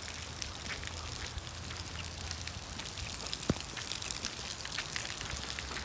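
Rain falling on wet pavement and puddles: a steady hiss made of many small drop ticks, with one sharper tap about three and a half seconds in.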